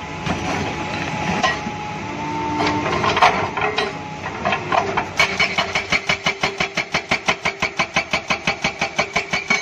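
Hydraulic breaker on a Doosan DX200A excavator hammering rock. The first half holds scattered knocks as the chisel is set against the rock. From about halfway through come rapid, evenly spaced blows, roughly nine a second.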